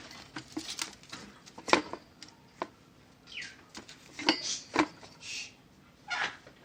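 Irregular clicks and knocks, with a few short scrapes, as the plastic casing of a Toshiba mini stereo system is taken apart by hand.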